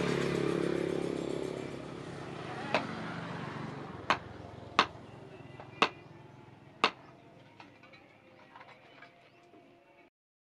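Five sharp knocks about a second apart as a knife handle is rapped down onto a steel stake to seat the hot tang, over a broad noise that fades through the first few seconds.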